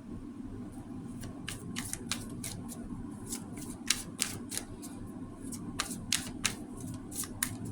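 Irregular sharp clicks and taps from a tarot deck being handled, over a steady low hum.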